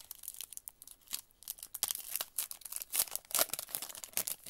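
Foil wrapper of a Prizm football trading-card pack being torn open and crinkled by hand: a run of irregular, sharp crackles, loudest about three seconds in.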